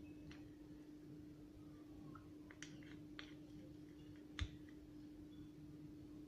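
Near silence with a faint steady hum and a few light clicks, and a soft knock about four and a half seconds in: a spoon touching the pot or bowl as honey is spooned into the carrot cooking water.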